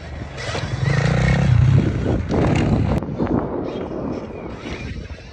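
Stark Varg electric motocross bike, set to 50 hp, ridden over a jump and along the dirt track. Its motor and drivetrain are loudest in the first two seconds and fade as it rides away.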